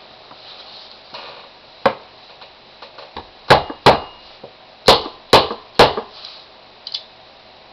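Six sharp knocks, mostly in quick pairs, with a few lighter clicks between: the mainspring housing pin of a 1911 pistol being tapped into the frame.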